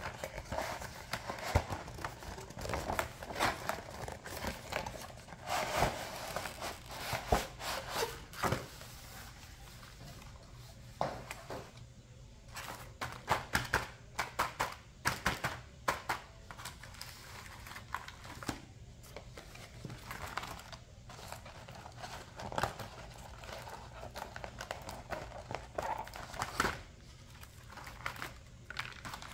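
Clear plastic window packaging and cardboard of a doll box crinkling and crackling as hands handle and open it, with scattered sharp clicks and taps.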